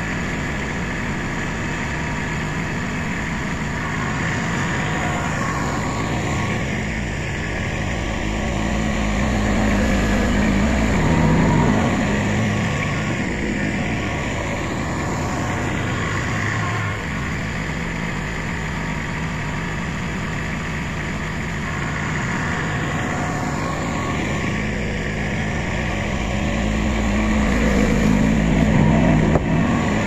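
Diesel engine of an old Kubota compact tractor running steadily as it drives, getting louder about a third of the way in and again near the end.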